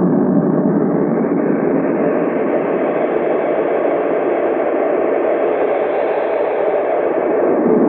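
Ibanez ES-2 Echo Shifter delay pedal in runaway self-oscillating feedback, heard through a miked valve amp: a loud, continuous wash of echoes. Its tone shifts as the delay-time slider and knobs are moved, brightening through the middle and darkening again near the end.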